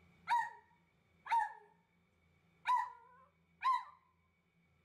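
West Highland white terrier barking: four short barks about a second apart, each dropping in pitch at the end. They are excited barks as the dog waits for its owner to come home.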